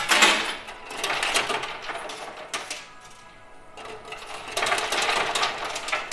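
Coins clattering as a bunch spills off the coin pusher machine's shelf into the payout tray: a dense spell of clatter at the start, quieter, then a second spell about four and a half seconds in.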